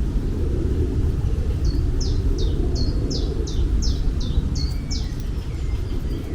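A bird singing a run of about ten quick, high notes, each sliding downward, about three a second, over a steady low rumble.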